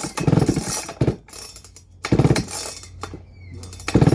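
Baumr-AG SX92 two-stroke chainsaw being pull-started: several hard yanks on the recoil starter crank the engine in short bursts, but it does not catch and keep running, which the owner puts down to bad fuel.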